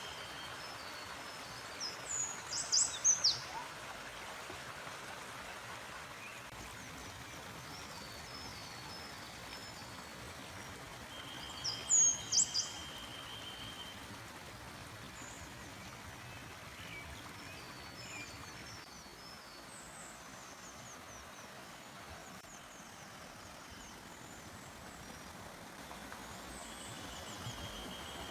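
A forest stream running as a steady rush, with birds calling over it: a loud burst of several sharp high notes about two to three seconds in and again about twelve seconds in, and softer chirps throughout. A thin, steady high tone comes and goes three times, near the start, in the middle and near the end.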